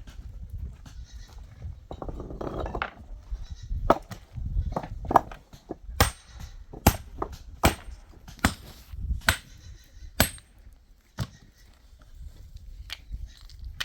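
Sheep and goats bleating. A run of sharp clicks and knocks through the middle stretch, over a low rumble.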